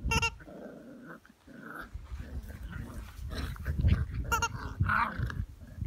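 Jack Russell terrier puppies and their mother play-fighting over a toy: low play growling throughout, with short high yaps just after the start and twice near the end.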